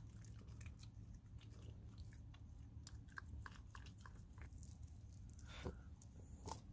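Small dog faintly licking and chewing chicken meat off a bone held out to it, with soft wet clicks and a couple of louder bites near the end.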